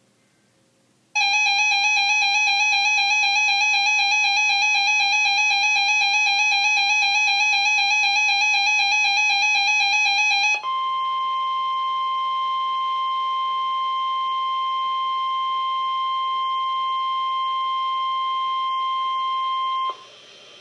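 Emergency Alert System attention signal: a loud, buzzy, steady two-tone alarm for about nine seconds. It switches straight to the NOAA Weather Radio 1050 Hz warning alarm tone, a single steady pure-sounding tone, for about nine seconds, which cuts off sharply and leaves faint radio hiss. These tones announce a flash flood warning.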